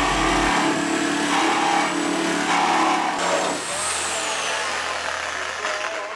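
Corded reciprocating saw with a Sabrecut Extreme blade cutting through a car's steel B-pillar: a loud, steady rasping saw noise. About three and a half seconds in, the cutting noise drops away and a quieter sound carries on.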